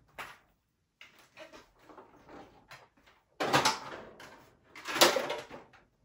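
Handling noises from a Hoover Anniversary upright vacuum being moved and set down with its motor off: soft knocks and rustles, then two louder scraping clunks about three and a half and five seconds in.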